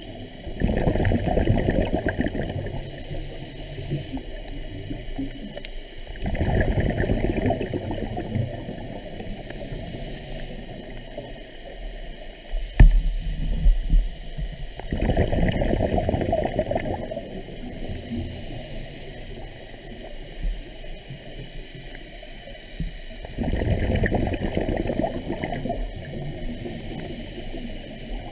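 Scuba diver's exhaled bubbles from the regulator, heard underwater: four bubbling bursts, one every seven or eight seconds, each breath out. A single sharp knock about halfway through.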